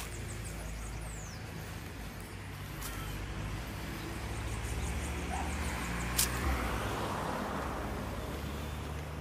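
Park ambience with a steady hum of road traffic, faint high chirping from birds or insects, and one sharp click about six seconds in.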